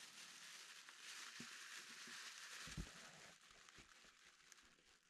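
Faint, continuous crinkling of a clear plastic bag as hands handle the bagged resin printer inside its cardboard box, with a soft knock about three seconds in.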